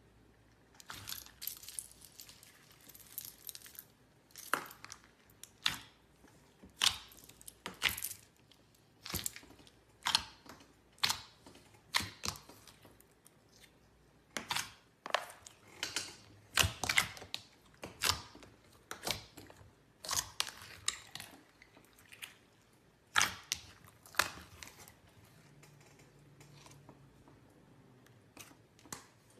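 Clear slime being pressed and stretched by hand, giving a run of sharp wet clicks and pops, about one or two a second, that thin out near the end.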